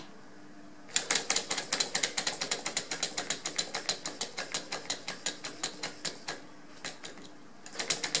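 A small 3D-printed Stirling engine with glass syringe cylinders, heated by a spirit-lamp flame, starts running about a second in: its mechanism clicks rapidly and evenly, several clicks a second. Near the end the clicking drops away for about a second, then picks up again.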